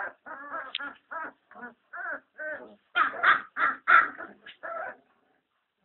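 German shepherd puppies yelping and whining in a rapid series of short, high cries, which stop about five seconds in.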